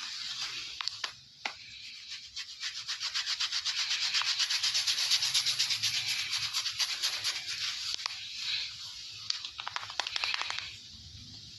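Hands rubbing and scrubbing vigorously through hair and scalp in a close-miked ASMR barber head massage, in quick rhythmic strokes several times a second. A few sharp snaps cut in near the start and again about three-quarters of the way through.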